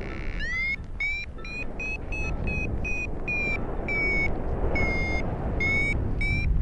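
Paragliding variometer beeping in a run of short electronic tones, two to three a second, with the pitch and pace shifting from beep to beep as it signals climbing air. Steady wind noise on the microphone runs underneath.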